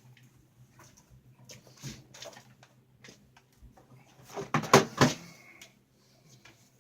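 Knocks and clunks of objects being handled, with a louder cluster about four and a half to five seconds in, over a faint steady low hum.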